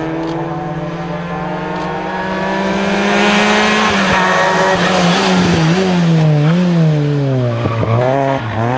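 Group N hill-climb car's engine pulling hard, its note rising steadily for about four seconds as it approaches and grows louder. Then the revs drop off for the hairpin and swing up and down in quick bursts of throttle as it goes through.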